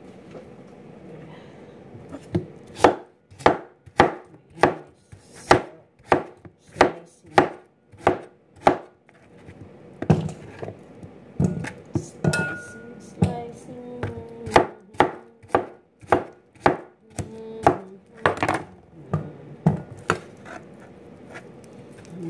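Chef's knife chopping raw pumpkin on a cutting board: a steady run of sharp knocks, a little under two a second, starting a couple of seconds in.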